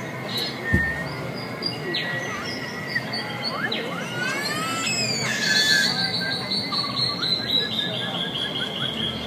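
Bird-like chirps, whistles and rising squeaks over a thin steady high tone, with a run of quick chirps in the second half. One low thump comes under a second in.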